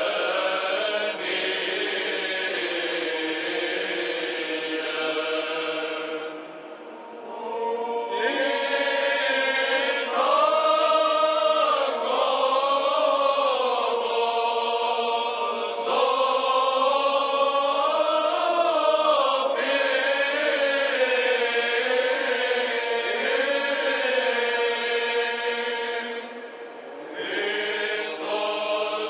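Choir singing Orthodox liturgical chant in long, sustained melodic phrases, with two short breaks between phrases, about seven seconds in and again near the end.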